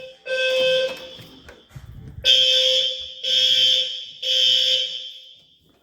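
Building fire alarm horns sounding the evacuation signal: harsh buzzing pulses in groups of three about a second apart, with a longer pause between groups. The signal is super noisy.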